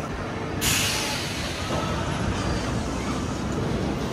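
Roller coaster car running along the steel track overhead, with a sudden rush of noise about half a second in that dies away over a second or so, over a steady rumble.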